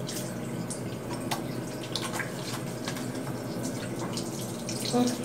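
Water running from a bathroom tap into a sink, with small splashes and clicks as hands are washed under it.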